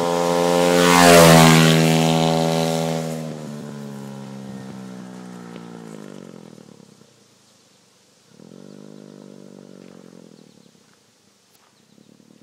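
Small off-road engine running loud and close, with a rush of wind noise about a second in. It then drops in pitch in steps and fades away. A fainter engine rises again for about two seconds around eight seconds in, and briefly near the end.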